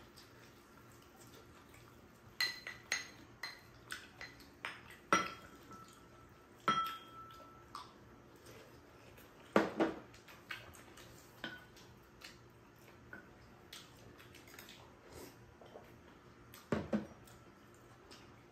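Spoons and chopsticks clinking and scraping against bowls, among them a stainless steel mixing bowl, during a meal: a scattered run of sharp clinks, a few ringing on briefly.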